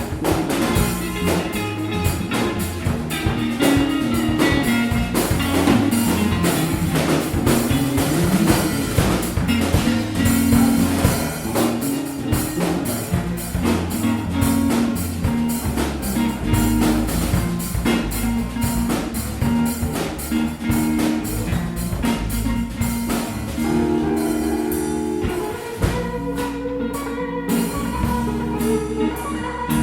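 A small live band playing: guitar over a bass line and a drum kit, in a blues-like groove. Near the end the cymbal strokes thin out.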